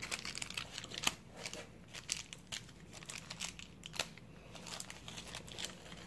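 Plastic packaging crinkling and rustling as it is handled, with scattered small clicks; the sharpest clicks come about a second in and again about four seconds in.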